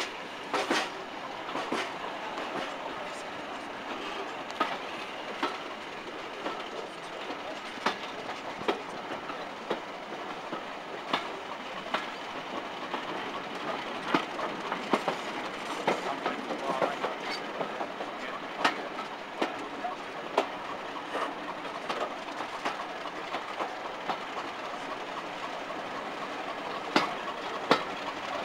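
Heritage railway carriage running along the track, heard from an open window: a steady rolling rumble broken by irregular clicks and knocks of the wheels over the rail joints.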